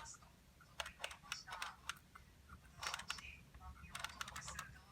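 Parts of a dismantled electric jigsaw being handled, giving irregular sharp clicks and light knocks in small clusters, about a second in, around three seconds and near four seconds.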